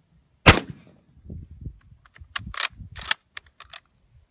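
A single rifle shot from a Mosin Nagant 91/30 firing 7.62×54R without a muzzle brake, about half a second in, with a short echo. It is followed by a run of metallic clacks and clicks over the next couple of seconds as the bolt is worked to chamber the next round.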